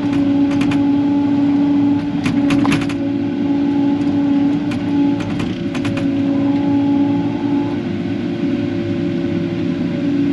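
Diesel excavator running steadily under work, with short groups of sharp knocks.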